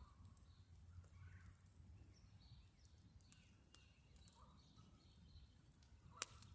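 Faint crackling of a scrap-wood fire burning in the open, with one sharp pop about six seconds in. Faint bird calls in the background.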